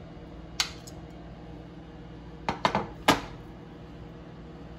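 A metal spoon clinking against ceramic dishes while diced tomatoes are spooned into a bowl: one clink about half a second in, then four quick clinks in a row a little past the middle.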